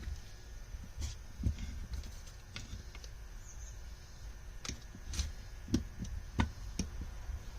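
Irregular light clicks and knocks of small metal carburetor parts and hand tools being handled while assembling a motorcycle carburetor rack, loudest a little past the middle.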